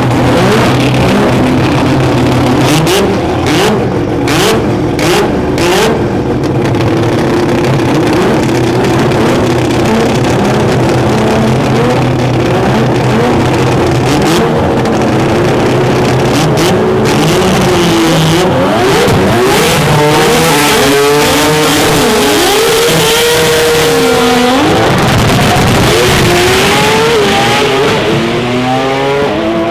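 Rotary drag car engine, a 20B three-rotor, running hard and revving, its pitch sweeping up and down over and over and climbing steeply near the end. Several sharp cracks come a few seconds in and again about halfway.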